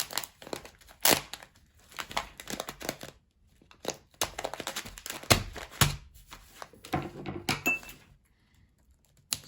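Camo Gorilla tape being pulled and pressed onto a plastic bag of rice: sticky tearing and crinkling plastic in several short bursts with pauses between.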